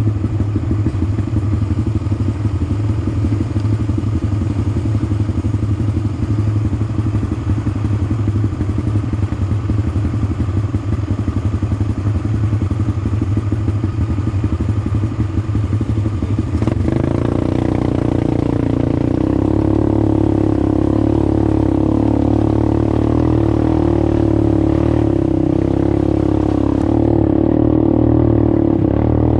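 ATV engine running at low revs with a choppy, uneven beat. About halfway through, the revs rise and it runs steadier and louder, as under throttle while riding.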